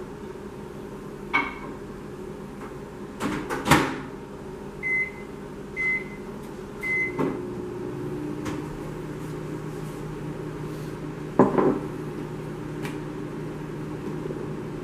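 Microwave oven: a couple of knocks, then three keypad beeps about a second apart, after which the oven starts running with a low steady hum. Another knock comes a few seconds later.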